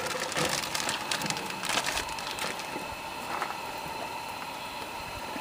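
Cut carrots and red potatoes being dumped from a plastic bag into a cast-iron Dutch oven: a quick patter of small knocks and rustles over the first two seconds or so, then fainter rustling.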